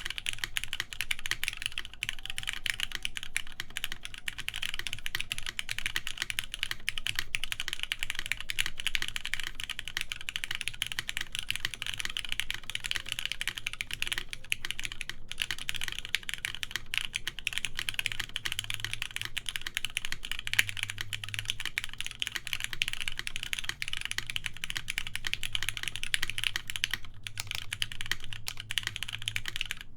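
Continuous typing on a TGR Jane v2 ME mechanical keyboard with lubed Cherry MX Black linear switches, a full polycarbonate plate and Cherry G81-3100 keycaps: a dense, steady stream of keystrokes.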